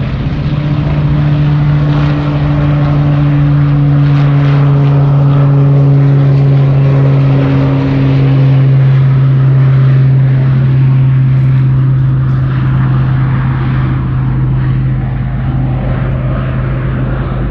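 Propeller engines of a firefighting water-scooping plane flying low and close: a loud steady drone with a strong low hum, a higher tone in it fading out about halfway through.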